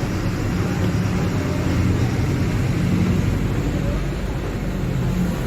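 Diesel engine of a Mercedes-Benz OF-1721 Bluetec 5 bus running, a steady low drone.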